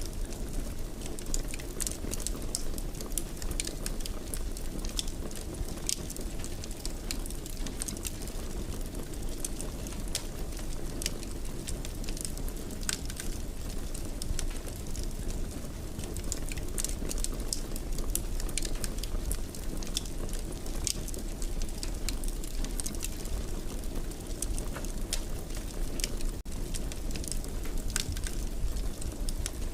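Wood fire crackling in a fireplace: a steady low hiss of flames with frequent small, sharp pops and snaps scattered irregularly throughout.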